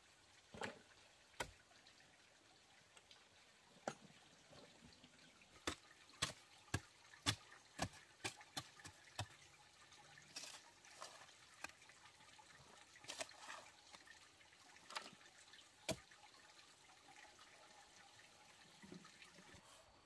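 Scattered sharp clicks and light knocks at irregular intervals, over a quiet background, with a cluster of louder ones in the middle.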